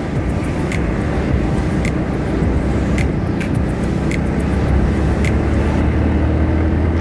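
Riding noise on a Bajaj Pulsar 180 motorcycle heard from the rider: wind rushing over the microphone with the low drone of the single-cylinder engine underneath, and a few scattered clicks.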